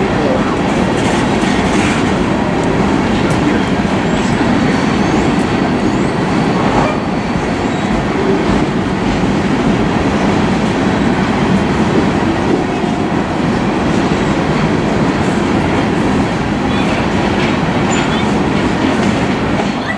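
Empty open-top coal hopper cars of a BNSF freight train rolling past at a steady speed, a continuous rumble with wheels clattering on the rails.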